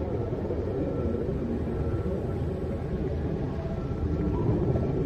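Deep, steady rumbling drone of a 'sound of space' track, with faint held tones above it. The track is electromagnetic recordings converted into audible sound, and it swells slightly about four seconds in.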